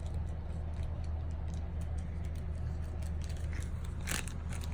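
Small clicks and ticks of plastic toy packaging being handled and pried at while trying to get it open, with one sharper click about four seconds in, over a steady low hum.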